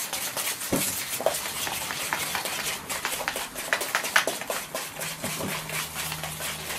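Thin end of a paintbrush stirring a gritty terrain texture mix of paint in a container: a quick, irregular run of scrapes and small clicks against the container.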